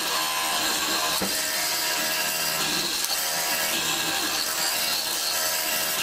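A power-driven hollow square mortising chisel and bit boring a square mortise in a wooden board. The motor runs steadily while the bit chews through the wood and throws out chips.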